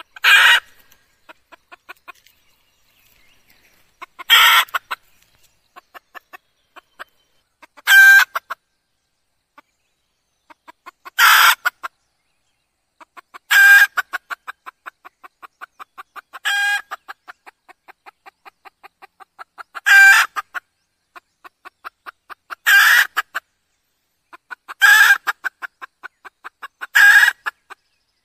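Red junglefowl hen calling: ten loud clucking calls, each about half a second long and spaced two to four seconds apart, with runs of soft, quick clucks in between.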